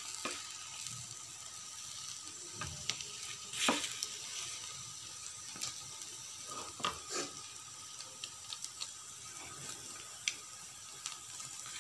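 Stuffed paratha frying in butter on a flat griddle (tawa), a steady sizzle, with a spatula pressing and scraping it in a few short strokes, the sharpest about four seconds in.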